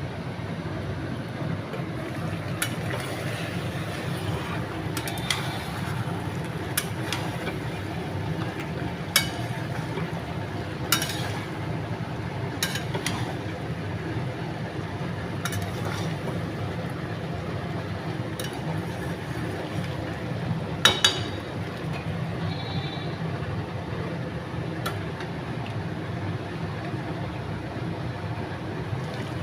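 Curry cooking in a pot over a steady low hum, with sharp metal clinks of a utensil against the pot every few seconds and a loud double clink about two-thirds of the way through.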